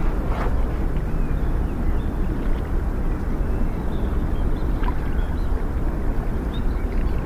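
Steady low rumbling outdoor noise with no clear pattern, with a few faint short chirps over it.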